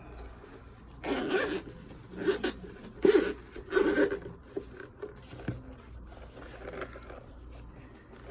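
Zipper of a hard-shell headphone carrying case being pulled open in four or five short strokes, followed by fainter handling rustles.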